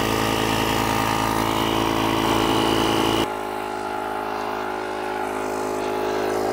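Built-in 12 V air compressor of a JF.EGWO PRO 3000A jump starter running steadily as it inflates a tire, a busy motor-and-pump hum. A little over three seconds in the sound steps down slightly quieter and less hissy, then runs on.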